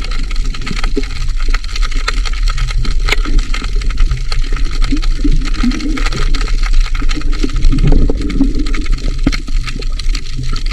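Underwater camera audio: a steady low hum with dense crackling clicks throughout, and wavering low sounds about halfway through and again near the end.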